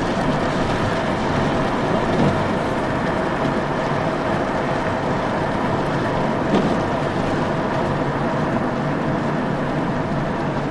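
Steady road and engine noise inside a car moving along a highway.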